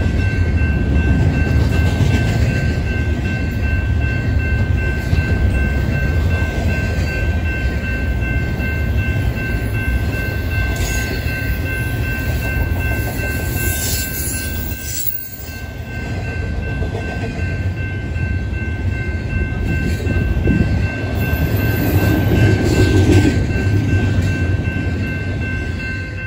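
Double-stack intermodal container train rolling past: a steady low rumble of wheels on rail with a thin, steady high whine over it. The rumble dips briefly about halfway through, and the last cars go by near the end.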